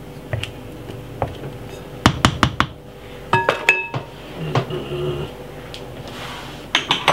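Kitchen cookware and utensils clinking: a few light clicks, a quick run of sharp clatter about two seconds in, then a ringing metallic clink a second later. A faint steady hum runs underneath.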